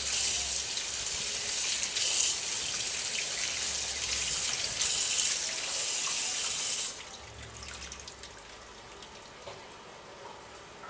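Kitchen tap running water onto soaked split chickpeas (chana dal) in a plastic colander while a hand stirs the dal under the stream. The water stops about seven seconds in.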